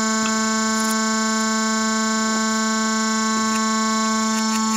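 Experimental noise music: a steady, unchanging drone of many held tones stacked one above another, with a few faint clicks scattered through it.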